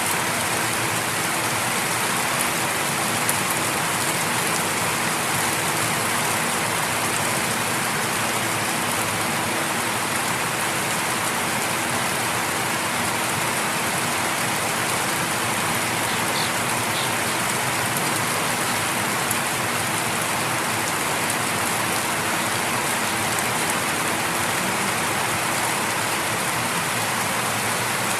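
Light rain falling steadily, an even patter of drops with no breaks.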